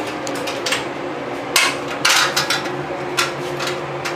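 Irregular sharp knocks and clinks of hand tools and fixings against the cooktop and cabinet as it is fastened from underneath, loudest around the middle.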